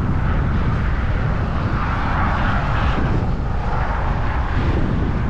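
Steady low rumble of wind and passing road traffic on the bridge, swelling briefly about two to three seconds in, as if a vehicle goes by.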